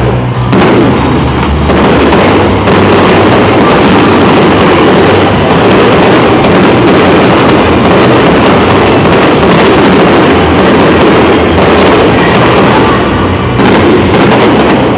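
Fireworks display going off in a rapid, continuous barrage of bangs and crackles, so dense that the reports run together, loud enough to overload the recording. The barrage eases slightly near the end.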